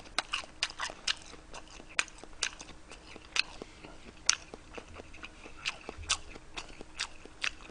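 Close-miked chewing of a mouthful of kimbap: a run of irregular soft clicks and smacks from the mouth, two or three a second.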